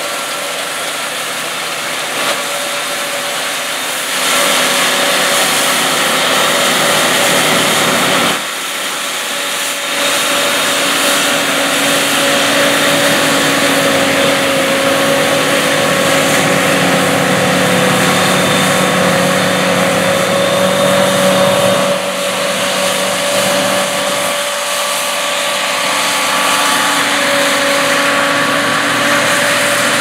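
CLAAS Lexion 760 TT combine harvester running under load while harvesting wheat: the engine runs steadily, with a whining hum and the rushing hiss of the threshing and cleaning machinery. The level shifts abruptly a few times.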